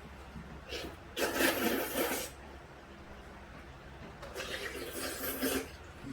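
Someone slurping hot chicken kalguksu noodles, two long noisy slurps about three seconds apart.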